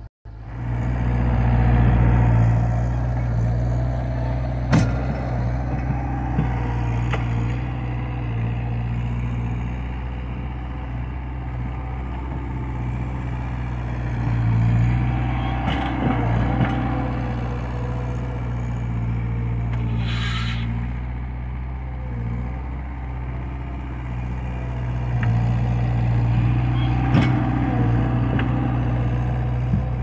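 Bobcat 753 skid steer loader's engine running steadily while it pushes snow, rising and falling with the load, with a few sharp knocks.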